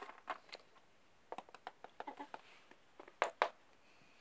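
Small plastic toy figures handled and moved about on a plastic toy playset: a scatter of light clicks and taps, with two louder knocks about three seconds in.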